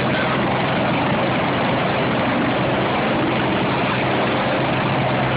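Medical helicopter's turbine and rotor running, a loud, even noise with a steady low hum as it lifts off and moves away low.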